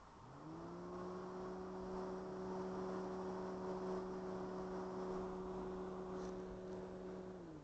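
A motor humming: it winds up in pitch shortly after the start, runs at a steady pitch for about seven seconds, then winds down near the end.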